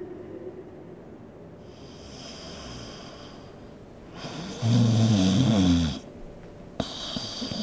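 A person asleep snoring: a soft breathy sound about two seconds in, then one loud snore lasting over a second about halfway through, followed by a short click near the end.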